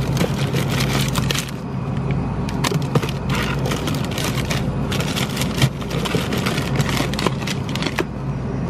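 Plastic-wrapped frozen beef patties crinkling and clicking as a hand rummages through them and pulls them from their box, over a steady low hum.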